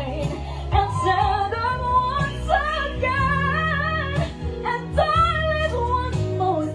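Women singing a slow pop ballad over an instrumental backing track, the held notes sung with a wide vibrato.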